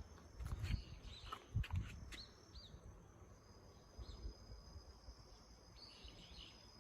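Outdoor ambience of birds chirping in short calls and an insect's steady high-pitched buzz, with a few low thumps in the first two seconds.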